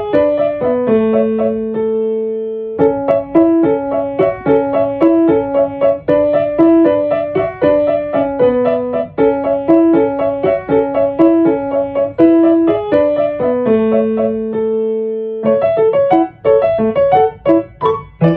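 Solo piano music: a melody of short repeated notes over a lower accompaniment, pausing twice on a long held chord, then moving into quicker notes near the end.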